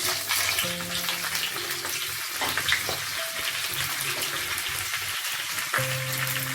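Okra, ridge gourd and eggplant sizzling in hot oil in a frying pan, with a steady crackle of many small pops.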